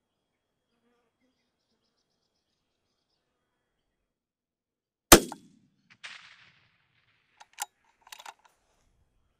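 A single rifle shot from a Tikka T3x bolt-action in .243, about five seconds in, loud and sharp, fired at a rabbit 211 metres away. About a second later comes a short hiss, then a few sharp clicks.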